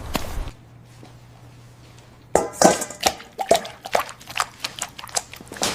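Light clinks and clicks: after a quiet stretch, a run of sharp, irregular taps about two seconds in, the first few the loudest.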